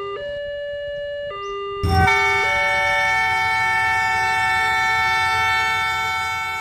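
Train horn sound effect: a few short chords stepping up and down in pitch, then a louder long held chord that starts with a thump about two seconds in and fades out near the end.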